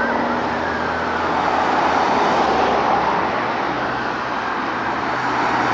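Road traffic with cars passing and a steady low engine hum, under an emergency vehicle siren wailing faintly, its pitch slowly rising and falling.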